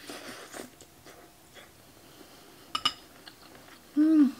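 Broth sipped from a ceramic spoon with a soft slurp, then two quick clinks of the spoon against the bowl about three seconds in. Near the end a short hummed "mm" of enjoyment, rising and falling in pitch.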